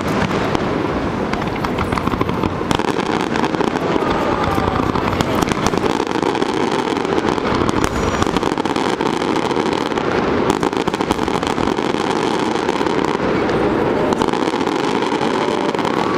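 Fireworks finale barrage: a dense, continuous volley of bursts and crackling with no pause between shots.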